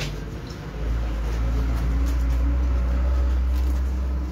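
A loud, steady low rumble that starts about a second in and holds.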